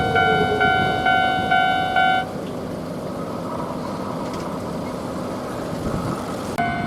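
A Japanese level crossing's electronic warning bell rings its 'kan-kan' tone about twice a second. It cuts off about two seconds in and starts again near the end. A streetcar rumbles along the rails underneath.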